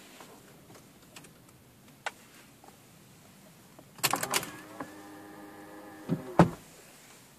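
Citroën electric door-mirror motor running: a click, then a rattle of clicks as it starts, a steady whine for about two seconds, and a loud clunk as it stops.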